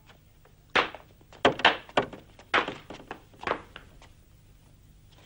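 A man walking on crutches: a series of about seven irregular knocks and thuds as the crutches and feet strike the floor.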